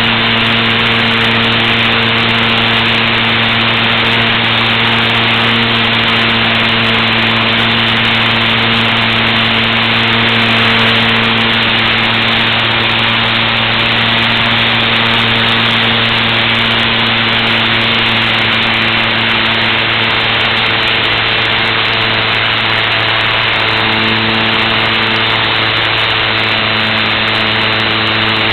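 Onboard sound of a HobbyZone Super Cub LP radio-control model plane in flight: its electric motor and propeller running with a steady hum, under a loud rush of air. The hum changes pitch briefly about three-quarters of the way through, as the throttle or airspeed changes.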